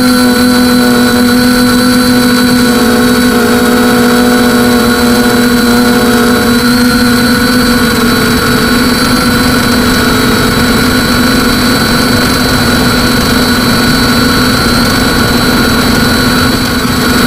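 Quadcopter's brushless motors and propellers whining at a steady pitch, heard from the camera mounted on the craft, over a steady rush of wind noise.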